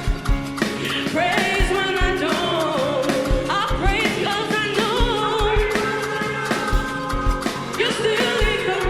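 Live gospel praise music: singing over a band with a steady kick-drum beat.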